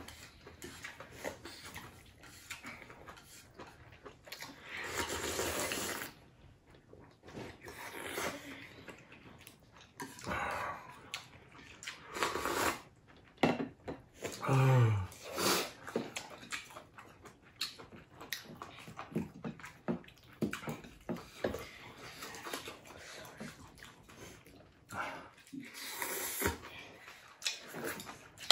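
People slurping ramen noodles and broth and chewing, in repeated wet swells a second or two long, with scattered small clicks. A brief low sound falls in pitch about fifteen seconds in.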